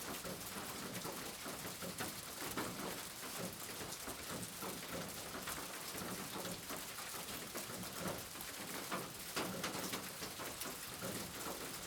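Steady rain falling, a dense hiss with many individual drops ticking on a surface, a few louder drops about two and a half seconds in and again near nine seconds.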